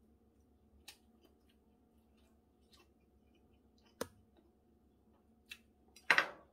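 Quiet eating sounds: chopsticks clicking lightly against dishes now and then, a sharper clack about four seconds in, and a louder short knock on the table near the end.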